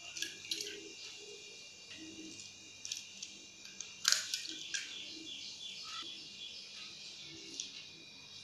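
Raw eggs being cracked against a stainless steel bowl: a handful of short, sharp shell taps and cracks, the loudest about four seconds in, over a faint steady high chirping in the background.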